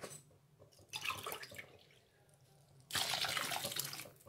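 Water poured from a measuring cup into a pressure cooker of sautéed vegetables and spices, in two pours: a short splash about a second in and a longer pour of about a second near the end.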